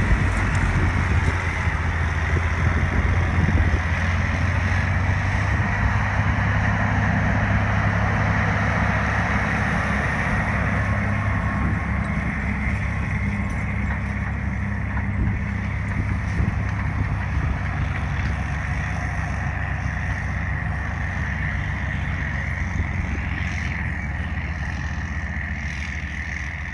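Big four-wheel-drive tractor's diesel engine working steadily under load while it pulls a Krause Dominator tillage implement through corn stalks. The sound fades slowly as the tractor pulls away.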